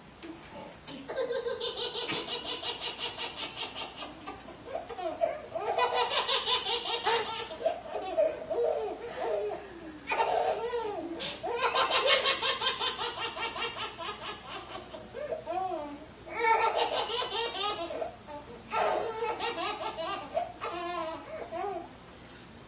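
A baby laughing hard in about five long bursts of rapid chuckles, about four or five pulses a second, with short pauses in between: laughter set off by the mother's sneezes.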